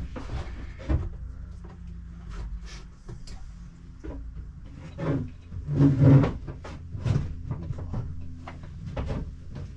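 Scattered knocks, clicks and bumps of things being handled and set down while tidying up inside a camper trailer, over a low steady hum. The loudest is a short cluster of thumps about six seconds in.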